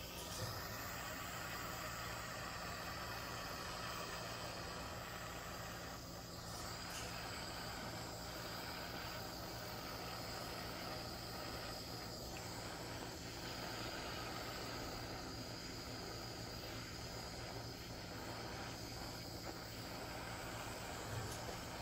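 Handheld blowtorch flame hissing steadily while it scorches the edges of carved wooden letters.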